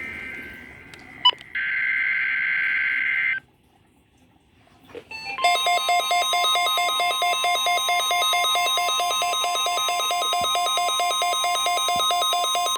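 NOAA Weather Radio weekly test through a receiver: the tail of one SAME digital header burst, a click, a second buzzy two-tone header burst of about two seconds, then a pause. About five seconds in, the steady 1050 Hz warning alarm tone starts, with a weather-alert radio's alarm beeping rapidly over it, a sign that this receiver was activated by the test signal.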